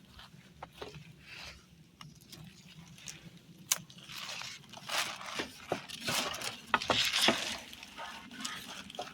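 Plastic rustling and crinkling with scattered light clicks and knocks as materials are handled, louder and busier from about four seconds in.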